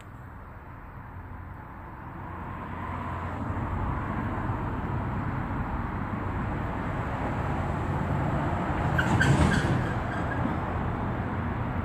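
Rumble of road traffic, building up over the first few seconds and then holding steady, with a brief louder burst about nine seconds in.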